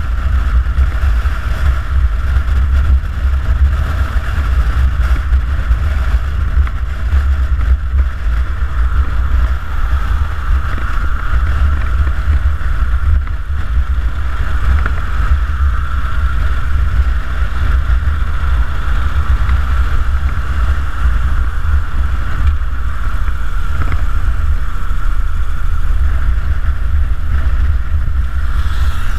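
Harley-Davidson Dyna Super Glide cruising at steady highway speed: its V-twin engine running evenly under heavy wind rush on the microphone, a constant low rumble with no change in pace.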